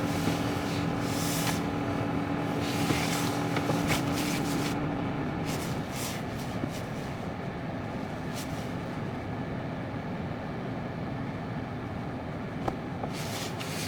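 A vehicle being driven, its motor giving a steady hum with a held tone for about the first five seconds, then a lower, even running rumble.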